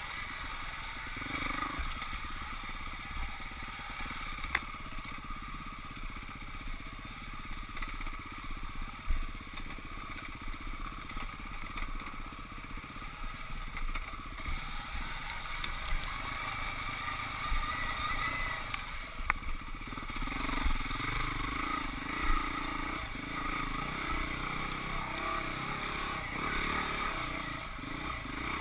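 Husqvarna 449 dirt bike's single-cylinder four-stroke engine running as it is ridden along a trail, with scattered knocks and rattles from the bike over rough ground.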